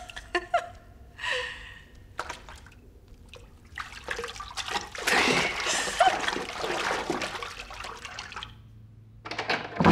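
Bathwater splashing in a foam-filled bathtub as a bather kicks and moves about, heaviest from about four to eight seconds in, mixed with brief vocal sounds. Near the end the splashing stops and a low steady hum takes over.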